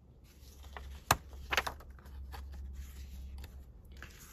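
Paper planner inserts being handled and shuffled, rustling softly, with a sharp click about a second in and a second click half a second later.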